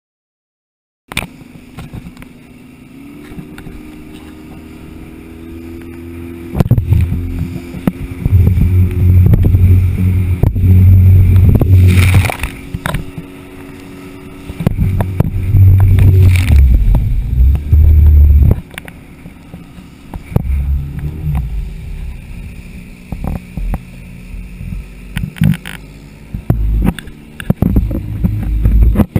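Small speedboat's motor running at speed, starting about a second in as a steady drone that steps up in pitch a couple of seconds later. Through the middle and again near the end, loud uneven rumbling from wind and spray hitting the camera microphone covers the engine.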